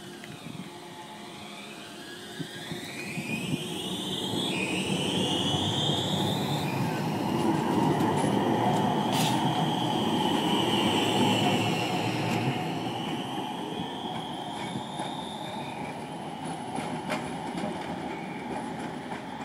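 Alstom Citadis electric tram pulling away from a stop. The traction drive's whine rises in pitch over the first few seconds, then wheel-on-rail rumble with a high steady wheel squeal swells through the middle and fades as the tram moves off.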